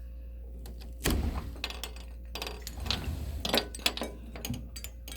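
Clicks, knocks and light clinks of a door's latch and handle being worked, irregular, with low handling rumble, starting about a second in.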